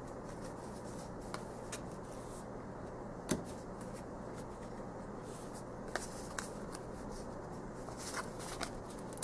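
Tarot cards being handled: light taps and slides as cards are set down and picked up, the sharpest tap about three seconds in and more near the end, over a faint steady low hum.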